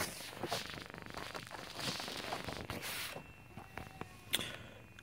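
Paper rustling and crackling for about three seconds as a folded quick start guide is handled and opened, then a single sharp click near the end.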